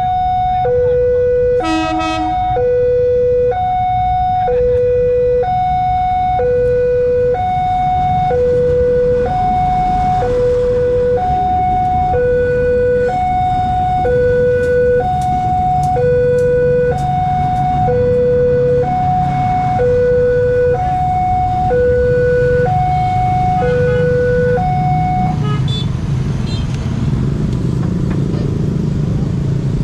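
Railway level-crossing warning siren, an electronic two-tone wail alternating between a low and a higher tone about once a second, warning of an oncoming train with the barriers down; it stops about 25 s in. A short horn toot sounds about 2 s in, and a commuter train rumbles past through the middle, its wheels ticking over the rail joints.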